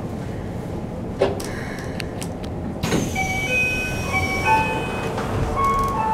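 Keikyu New 1000 series commuter train as heard from inside the car while it comes to a stop: low running rumble with one sharp click a little over a second in. About three seconds in the doors slide open with a sudden rush, followed by a string of chime-like electronic tones.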